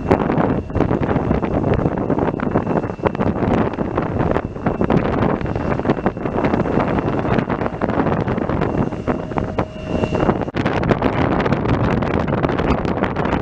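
Wind buffeting the microphone in gusts. Under it runs a faint, steady high whine that cuts off about ten seconds in.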